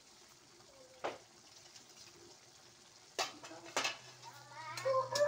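Green beans sizzling faintly in an aluminium wok. About three seconds in, a metal spatula clanks twice against the wok. Near the end, a rooster starts crowing.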